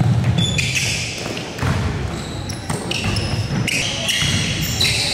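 Basketball game sounds on a hardwood gym floor: sneakers squeaking in many short, high chirps, a ball bouncing, and voices echoing in a large hall.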